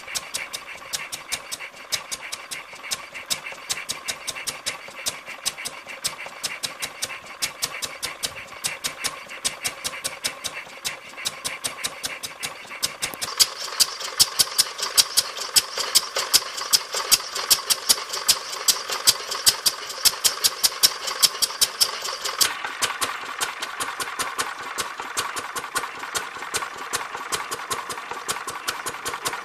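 Ruston Hornsby 1.5hp 6PB single-cylinder petrol stationary engine running at a steady speed, with a regular beat of sharp exhaust pops. The pops get louder and crisper for a stretch in the middle, then settle back.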